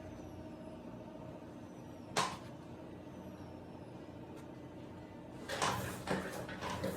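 Handling noises as the micromotor's dust-collector unit is manipulated: a single sharp knock about two seconds in, then a cluster of clicks and rustles near the end, over a low steady hum.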